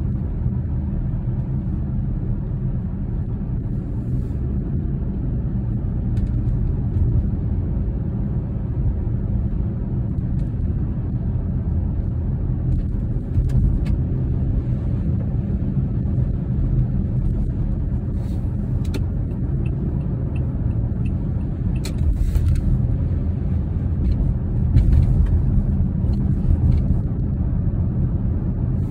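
Steady low rumble of a car's engine and tyres heard from inside the cabin while driving on a highway, with a few faint clicks in the second half.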